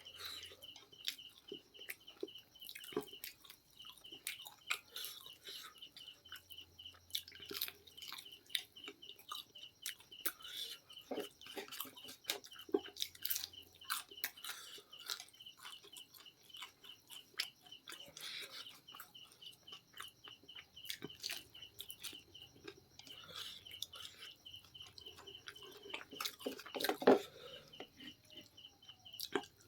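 Close-up eating sounds of crispy fried chicken being bitten and chewed: irregular crunches, clicks and mouth smacks, with one louder crunch near the end. Behind them, a high, rapid chirping trill comes and goes in long runs.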